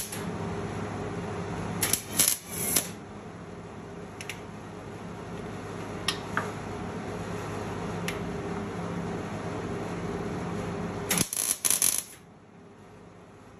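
Hobart MIG welder laying short tack welds on a steel exhaust pipe: a handful of brief crackling arc bursts, the longer ones about two seconds in and about eleven seconds in. A steady low hum runs beneath and cuts out near the end.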